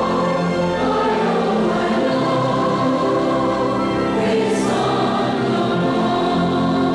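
A congregation singing a devotional song together, on long held notes.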